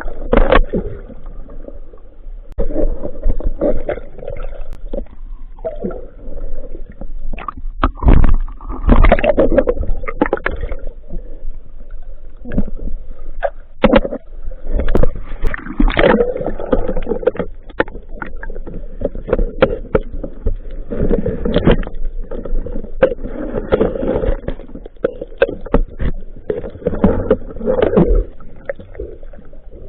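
Muffled, irregular gurgling and bubbling of water with scattered knocks, heard through an underwater camera housing during spearfishing.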